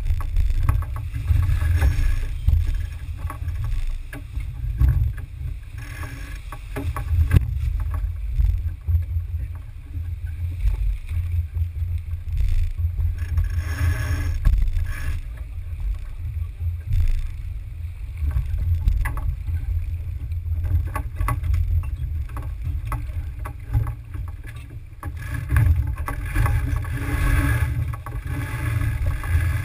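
Heavy low rumble of wind and water on a GoPro aboard a Smaragd-class sailboat under way, with scattered knocks and clicks from crew and gear and a swell of rushing noise twice.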